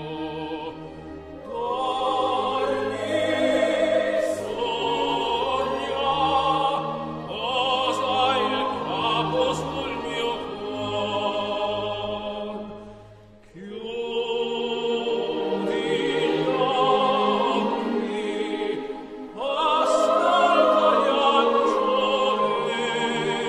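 Operatic classical music: a singing voice with vibrato over an orchestra, dropping away briefly about halfway through.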